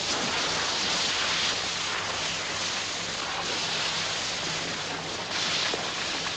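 Water gushing and splashing into a wooden rowing boat through holes in its bottom, a steady rushing noise over a faint low hum: the boat is leaking.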